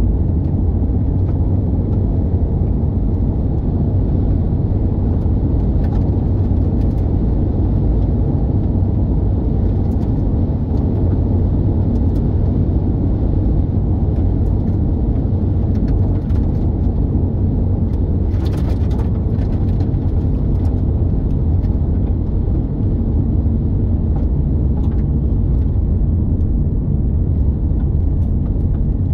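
Car driving steadily on the road: a constant low rumble of engine and road noise, with a few faint ticks and a brief hiss about two-thirds of the way through.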